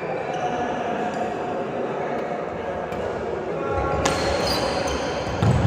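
Play on an indoor sports court: short shoe squeaks and thuds of players moving, over a steady babble of voices in the hall.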